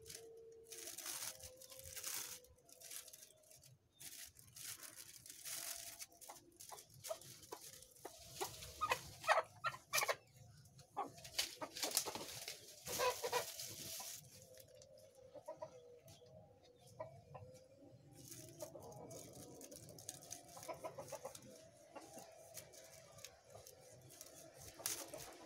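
Clear plastic bag crinkling and rustling in irregular bursts as it is handled around a cutting. Chickens cluck now and then in the background.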